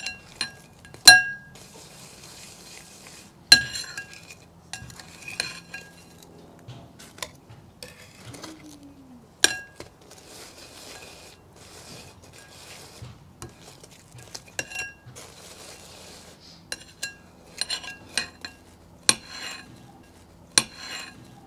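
Metal tongs clinking against a ceramic bowl, each clink ringing briefly, amid the gritty scrape of granulated sugar as a deep-fried battered sandwich is turned and coated in it. The sharpest clinks come about a second in, at about three and a half seconds, and near the middle.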